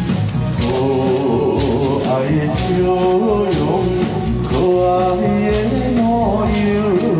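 Music with a steady beat, shaker-like percussion and a melody line that glides between notes.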